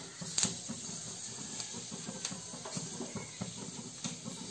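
Hot coconut oil sizzling with mustard and fenugreek seeds frying in a kadai: a steady hiss broken by a few sharp pops of spluttering seeds, the loudest about half a second in.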